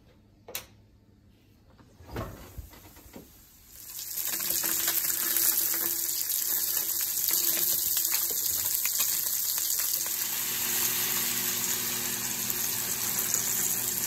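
Salmon fillet sizzling in hot oil in a nonstick frying pan, a steady hiss that sets in about four seconds in. Before it, a click and a few light knocks.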